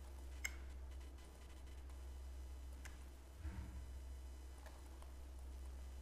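A few faint, sharp clicks from a computer mouse and keyboard as on-screen text boxes are moved and copied, the loudest about half a second in, over a steady low electrical hum.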